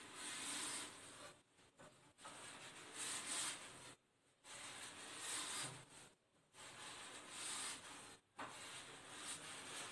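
A damp cloth wrapped around a gloved hand rubbing along a metal shower bar: about five faint wiping strokes, each a second or so long, with short pauses between them.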